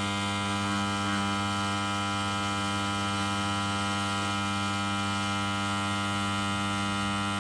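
Homemade spot welder's transformer, a rewound 140 A arc-welder transformer, humming steadily under heavy load as it drives current through a high-tensile steel bolt clamped between its copper electrodes, heating the bolt until it glows.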